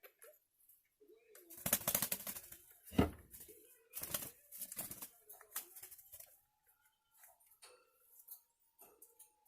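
Pet birds moving about: a run of rustling and flapping with a sharp knock about three seconds in, then a faint, long, steady whistle-like tone.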